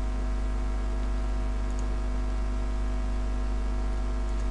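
Steady electrical mains hum with many overtones and a light hiss from the recording chain. There are a couple of faint clicks a little under two seconds in.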